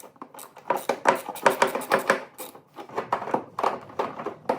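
Hand tool working a bolt behind the plastic wheel-well stone guard: a rapid, irregular run of clicks and knocks.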